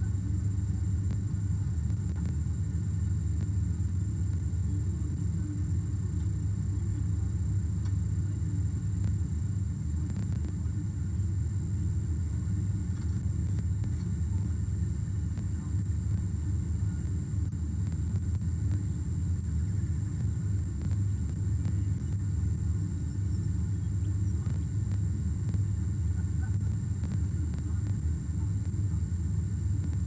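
Steady low rumble with a thin, steady high-pitched whine over it, with no change throughout.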